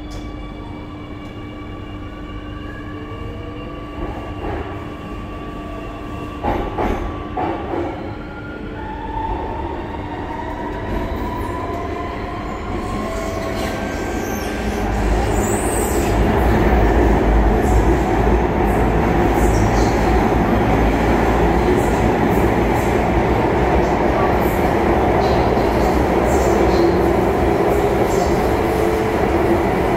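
SMRT C830C metro train pulling away: its traction motors give a whine that climbs in pitch as it accelerates, with a few clunks along the way. About halfway through, the rumble and rush of the train running at speed grows louder and stays steady.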